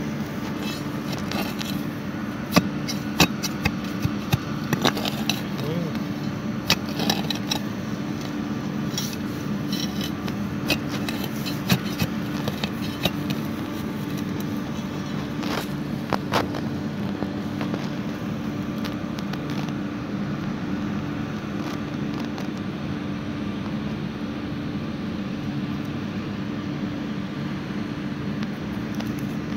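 Shovel blade scraping and cutting into soil and grass turf while digging a hole, with sharp clicks and scrapes clustered in the first half, over a steady low hum.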